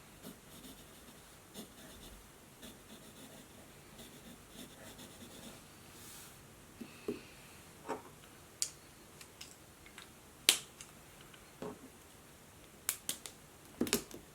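Handling at a study desk with a laptop and notebook: soft faint ticking for the first few seconds, then a string of separate sharp clicks and taps, the loudest about ten seconds in and a quick cluster of three near the end.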